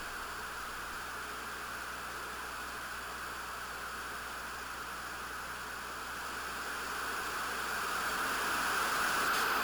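Television static: a steady hiss of white noise that grows louder over the last few seconds.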